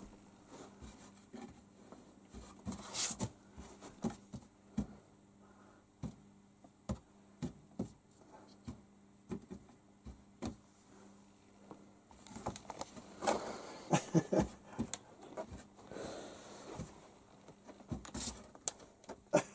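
Light scattered taps and rustling of cardboard as a hand moves about in and on a cardboard box, busier in the second half.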